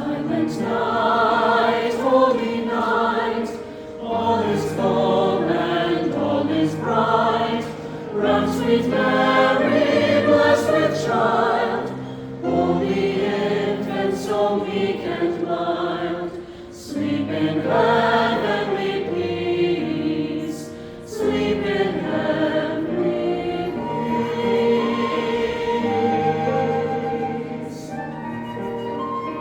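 A choir singing a piece in several parts, phrase by phrase, with brief pauses for breath between phrases.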